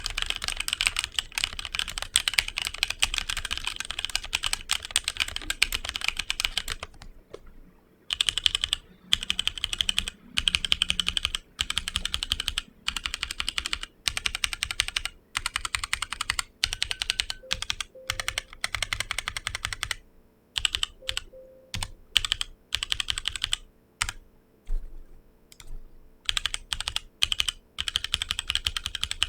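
Typing on a HyperX Alloy Origins Core mechanical keyboard with HyperX Aqua tactile switches: rapid, continuous keystrokes for about seven seconds, then bursts of typing broken by short pauses.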